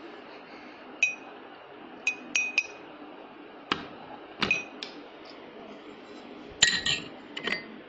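A tall drinking glass being knocked and clinked, about ten light, sharp strikes at uneven intervals, several with a brief glassy ring, bunched together near the end.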